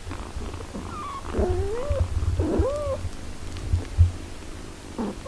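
A nursing cat purring with a steady low rumble, while the eight-day-old kittens give a few short squeaky mews that rise and fall, about a second in, again at about two and a half seconds, and briefly near the end. A low bump sounds about four seconds in.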